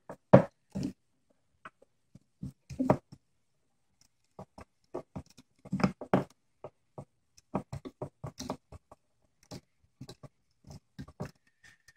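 Irregular small metallic clicks and scrapes of a small hand tool working the tiny screws on an optical drive's sheet-metal case.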